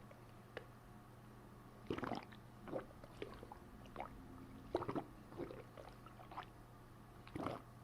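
Stomach gurgling as a fist presses down on the belly: short gurgles in irregular clusters, the strongest about two seconds in, around five seconds and near the end.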